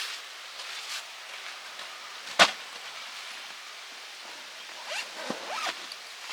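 A single sharp knock about two and a half seconds in, over a quiet outdoor background, with a few short sliding high-pitched sounds near the end.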